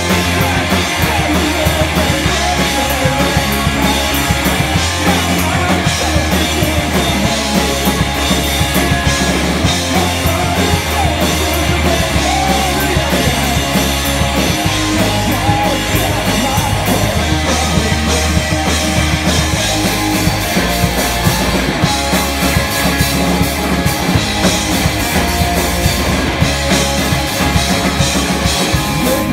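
Live rock band playing loudly and without a break: distorted electric guitars, electric bass and a drum kit.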